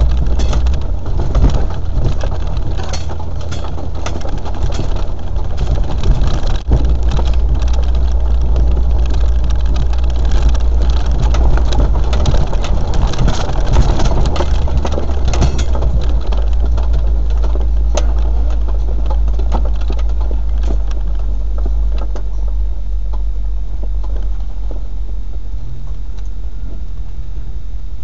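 Land Rover four-wheel drive's engine running at low speed, a steady low rumble with many knocks and rattles over the first two-thirds, settling into a steadier hum near the end.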